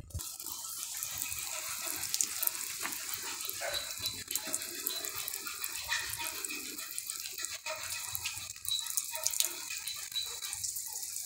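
Water from a plastic watering can's rose sprinkling onto a seed-cell tray and potting soil: a steady spray hiss that starts abruptly.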